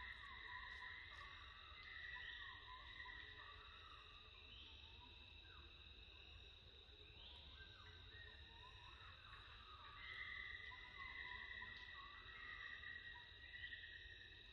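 Faint outdoor animal ambience: a steady high insect drone, with buzzy stretches, short rising calls every two to three seconds and small chirps.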